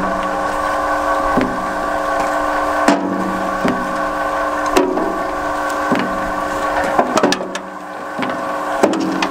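A firewood processor and its homemade belt conveyor running with a steady machine drone, while split firewood pieces drop out of the chute onto the rubber conveyor belt with a wooden knock every second or so.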